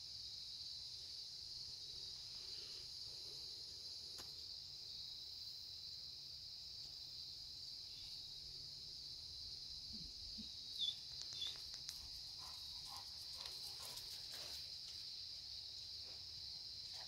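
Faint, steady high-pitched chorus of insects, with two short sharp chirps a little past the middle and a few faint clicks after them.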